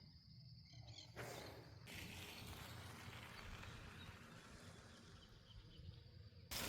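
Faint outdoor nature ambience, with a steady high insect drone running through it.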